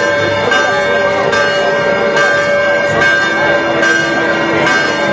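Church bells ringing in a festive peal, a fresh strike a little more than once a second, each leaving long ringing tones that overlap, with crowd voices underneath.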